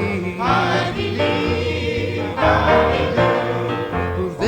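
A gospel song sung by several voices together, over instrumental accompaniment with a steady bass line.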